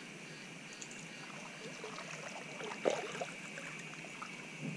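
Kayak paddle strokes in calm river water: soft splashes and dripping from the paddle blades, with a louder splash about three seconds in.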